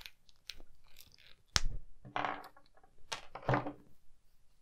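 Hard plastic action-figure parts clicking and creaking as a 3.75-inch Stormtrooper figure's head is worked off its ball joint, with a few sharp knocks about one and a half and three and a half seconds in as pieces are set down on a wooden table.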